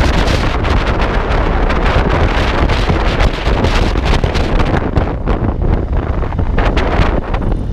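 Heavy wind buffeting on the camera microphone from riding a motorcycle at speed, with the Indian Springfield Dark Horse's V-twin engine and road noise underneath.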